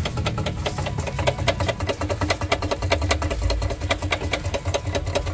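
Air ratchet running steadily, with fast, even clicking over a low hum, as it spins out a bolt at the timing-chain end of a Hyundai Genesis engine during teardown.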